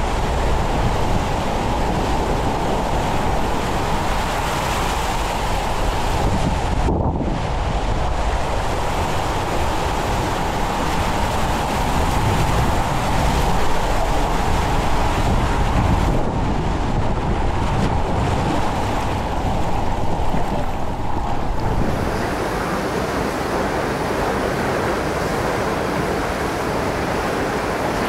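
Water rushing and splashing around an inner tube as it slides through a bowl water slide and down an enclosed tunnel, with wind buffeting the microphone. The sound eases a little near the end.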